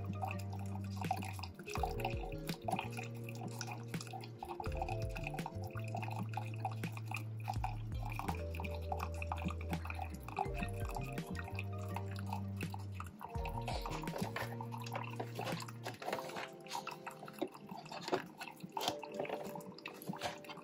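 Background music with a bass line moving in steps, which drops out about three quarters of the way through. Under it, a Keurig single-serve brewer trickles hot water into a ceramic mug, with small dripping clicks.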